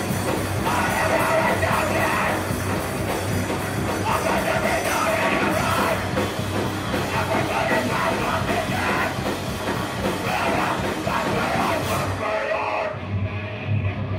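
Heavy metal band playing live: distorted electric guitars, drums and cymbals, with yelled vocals. About twelve seconds in, the cymbals and drums drop away, leaving mainly the guitar.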